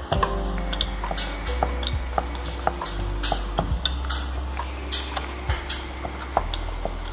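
Wooden rolling pin rolling out dough on a wooden board, with irregular sharp clacks and knocks of the pin against the board throughout.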